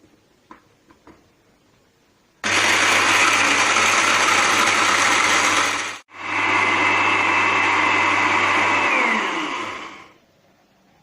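Electric grinder running, pulverising sun-dried orange peels into powder. It switches on about two and a half seconds in, cuts out for an instant around six seconds, runs again, then winds down with a falling whine near the end. A few light clicks come before it starts.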